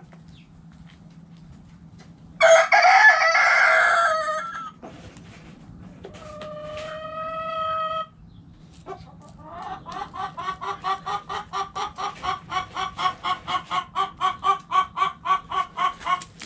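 Chickens in a coop: a rooster crows loudly about two seconds in, a second, steadier crow follows, and then a hen clucks rapidly and evenly, about five clucks a second for some six seconds.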